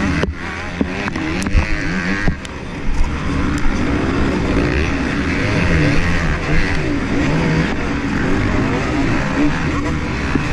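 Motocross bike engines racing in a tight pack, heard from the rider's helmet camera: the rider's own engine revving up and down through the corner, with the other bikes' engines close around it. The revs drop briefly twice in the first few seconds.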